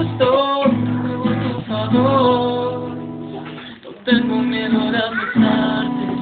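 Acoustic guitar strumming chords, each chord struck and left to ring and fade before the next strum.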